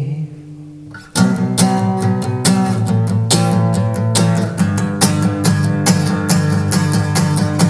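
Instrumental break in a rock song with no singing. About a second in, the music drops back to a quieter held chord, then the band comes back in loudly with guitars strummed in a steady rhythm.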